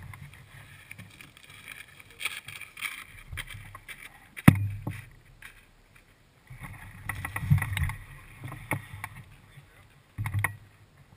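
Knocks, clicks and rattles of a hang glider's aluminium frame being handled on the ground, carried through to a camera mounted on the glider, with patches of low rumble; one sharp knock about four and a half seconds in is the loudest.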